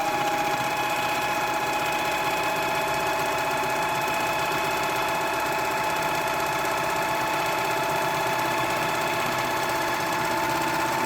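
White Power Lock serger running at a steady speed, overlocking the raw edge of a fabric ruffle: an even machine hum with a high whine.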